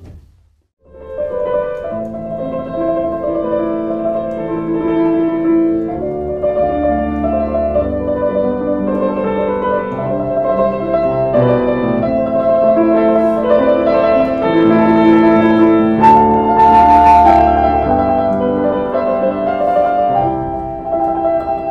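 Background piano music: a slow melodic piano piece that starts about a second in, after a brief gap of near silence.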